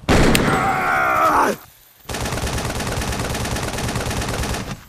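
A single shot with a man's drawn-out yell, then after a brief pause a long burst of rapid automatic gunfire, lasting nearly three seconds.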